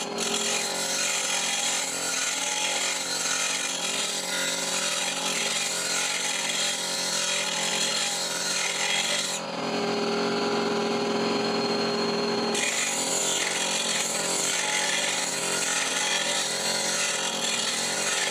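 Electric bench grinder running, its stone wheel grinding the steel bevel of a flat woodcarving chisel with a steady hissing rasp. About nine seconds in the chisel comes off the wheel for some three seconds and only the motor's steady hum and spinning wheel are heard, then grinding resumes.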